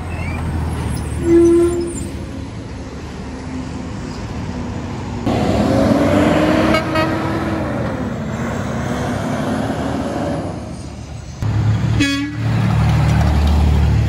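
Diesel semi trucks driving past with engines running, and a few short horn toots. A heavy, low engine rumble near the end is the loudest part.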